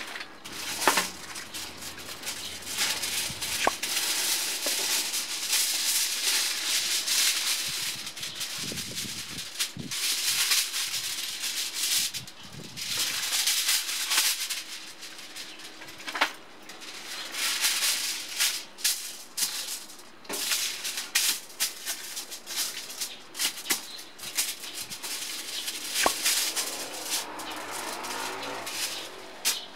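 Hands kneading a sticky ground-meat meatloaf mixture in a plastic bowl: wet squelching and slapping in irregular bursts, with scattered clicks. Near the end comes the crinkle of aluminium foil being handled.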